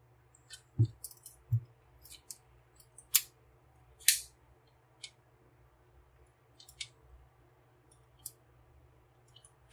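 Hard plastic parts of a JuJiang Supreme Leader transforming robot figure, an oversized knock-off of Classics Optimus Prime, clicking and clacking as they are folded by hand, its ratchet joints clicking. Scattered sharp clicks, a longer scrape about four seconds in, and two soft knocks in the first two seconds.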